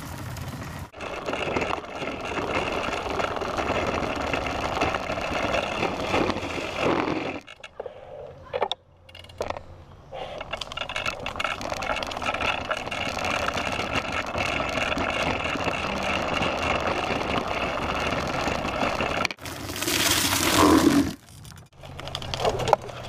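Adult big wheel trike rolling over brick pavers, a steady rumbling rattle from its wheels and frame. The noise drops away for a couple of seconds about eight seconds in. A loud scrape comes near the end.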